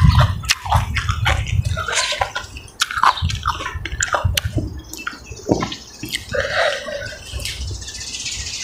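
Close-miked wet chewing and lip-smacking of a mouthful of sticky rice and raw beef koi, with many quick sharp clicks over soft low thuds.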